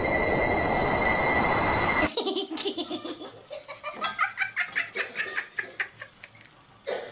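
Background music cuts off abruptly about two seconds in, followed by high-pitched laughter in quick, rapid pulses for about five seconds.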